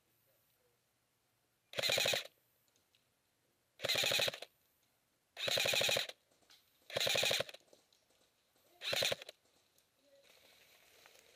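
ICS M4 electric airsoft rifle firing on full auto in five short bursts, each about half a second of rapid shots, a second or two apart.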